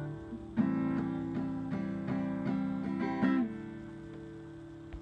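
Acoustic guitar playing. A chord rings and fades, then comes a run of quick, evenly spaced notes about three a second, ending on a chord that is left to ring out. A click comes right at the very end.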